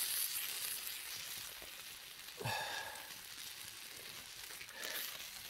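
Steak sizzling over an open campfire, a steady crackling hiss. A short sound sliding down in pitch cuts in about halfway through.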